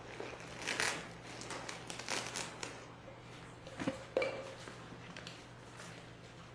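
Papers rustling and being shuffled, with a couple of sharp knocks about four seconds in, over a steady low hum.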